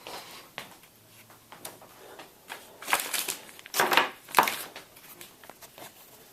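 Handling noise from a small netbook being moved about on a desk: a few short scraping, rustling bursts with light clicks and knocks, the loudest about three to four and a half seconds in.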